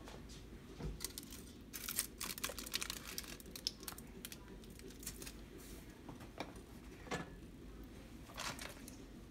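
Aluminium foil sling crinkling and crackling as a meatloaf is lifted out of an air fryer basket, densest about two to four seconds in, followed by a few light knocks as it is set down on a wooden cutting board.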